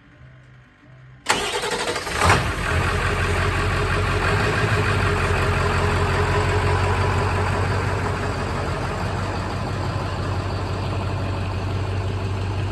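Ford F350's 7.3 Powerstroke V8 turbo-diesel cranking and catching about a second in, then settling into a steady idle.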